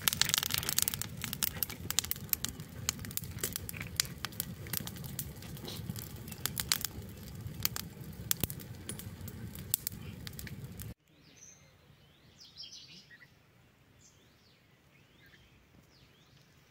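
Open wood fire of sticks and dry leaves burning: rapid irregular crackles and pops over a steady low rush of flame. It cuts off abruptly about eleven seconds in, leaving a faint background with a few bird chirps.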